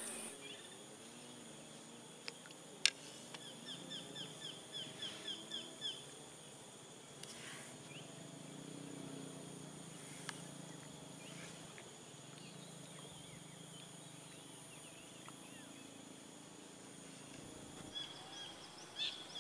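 Quiet outdoor ambience with a faint steady high-pitched hum, a single sharp click about three seconds in, and then a bird calling a quick run of about a dozen chirps, roughly five a second.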